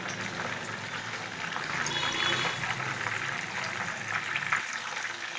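Keema-stuffed bell peppers frying in hot oil in a pan, the oil sizzling and crackling steadily.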